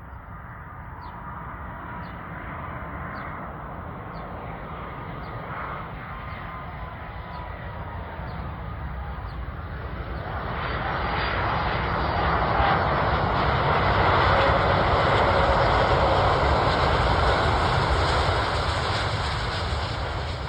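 Airbus A330 jet airliner on landing approach, its engine noise swelling steadily as it nears and passes, loudest in the second half. A faint whine slides slowly down in pitch during the first half.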